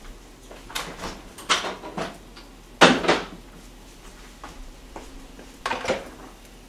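Kitchenware being handled on a counter: a few short clatters and knocks, the loudest about three seconds in, and two more near the end as a plastic food container is picked up.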